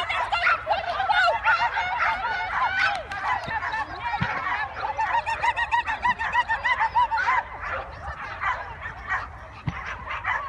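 Excited flyball dogs yelping and barking in rapid, high-pitched yips, thickest through the first seven seconds or so and then thinning out.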